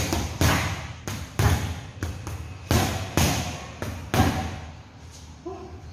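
Boxing gloves punching round leather hanging heavy bags: about eight hard thuds in quick, uneven succession over the first four seconds, then the punching stops.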